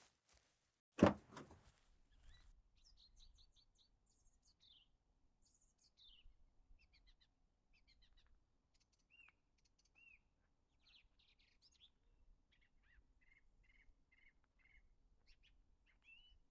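A single loud thud about a second in, then birds chirping and calling in short high chirps, trills and falling whistles.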